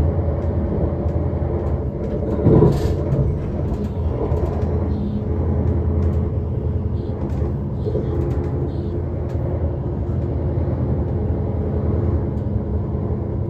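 Train running noise inside the carriage: a steady rumble with a low hum, and one brief louder noise about two and a half seconds in.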